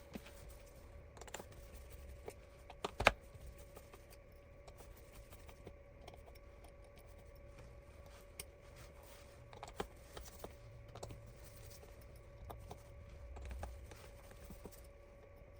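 Faint, scattered small clicks and taps of a tool prying flex cable connectors off a smartphone's internal board, with one sharper click about three seconds in, over a faint steady hum.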